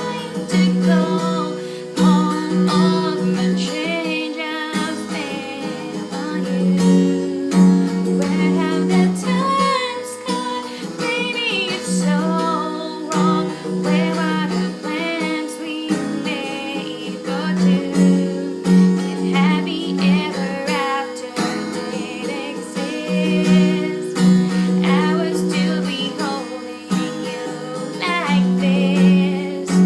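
A woman singing a pop song cover to her own strummed acoustic guitar, with some vibrato in the voice.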